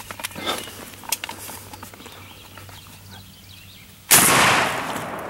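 A single shotgun shot at a wild turkey about four seconds in: a sudden, very loud blast whose echo trails off over about a second. Before it, only faint rustling and small clicks.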